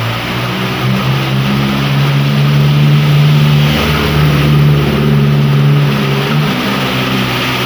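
A motor vehicle's engine running close by, its pitch stepping a little and easing off near the end, over the steady hiss of heavy rain.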